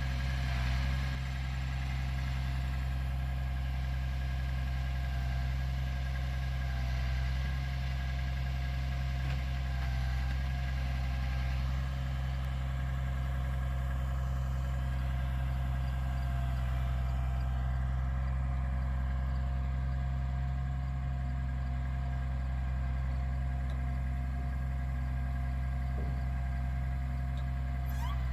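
Flatbed delivery truck's diesel engine running steadily while it powers the truck-mounted knuckle-boom crane lifting a pallet of pavers off the bed. A steady low hum with a faint steady whine above it.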